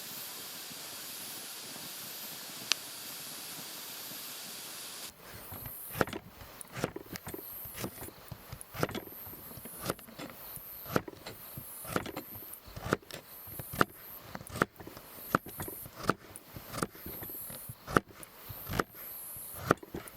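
A steady hiss with one sharp crack. Then, about five seconds in, footsteps start walking over the ground at roughly one step a second.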